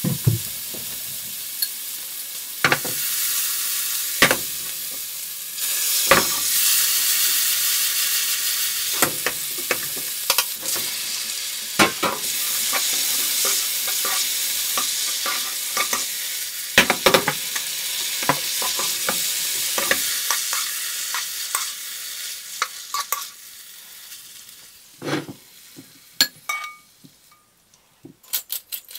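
Food sizzling in a frying pan while it is stirred, with a utensil knocking against the pan every few seconds. The sizzle dies down over the last several seconds, and a few light clicks come near the end.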